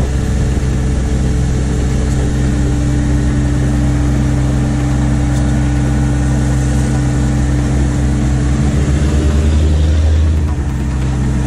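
Cat AP655F asphalt paver's diesel engine running steadily under load, heard from the operator's platform. A low hum in the engine note strengthens about eight seconds in and drops away near ten seconds.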